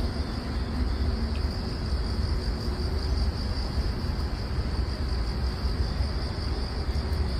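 Insects droning in one steady, unbroken high-pitched chorus over a low background rumble.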